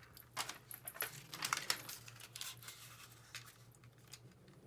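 Faint crinkling and rustling of tape and cross-stitch fabric being handled, a string of small irregular crackles.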